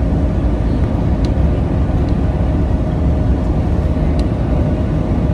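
Cabin noise of a 2011 New Flyer C40LF CNG transit bus under way: its Cummins Westport ISL G natural-gas engine and road noise make a steady low rumble with a faint steady whine, and a few light ticks from the cabin.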